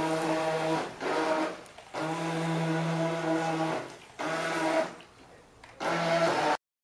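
Toy radio-controlled speedboat's electric motor whining at a steady pitch, run in about five bursts with short gaps as the throttle is worked. It cuts off suddenly near the end.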